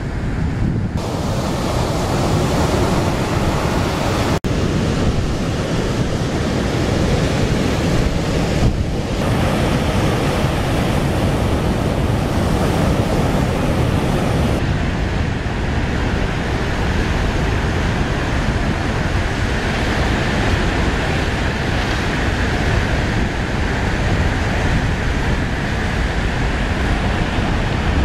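Heavy typhoon-driven surf breaking continuously on a rocky shore and beach, a dense loud wash of crashing white water with wind buffeting the microphone. The sound drops out for an instant about four seconds in.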